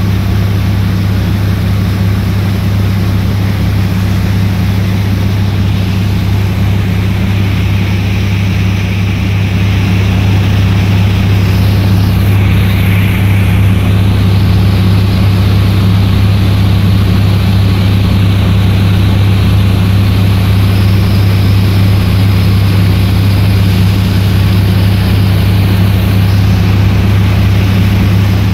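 Engine of a small fiberglass passenger boat running under way, a steady deep hum with an even rushing noise over it.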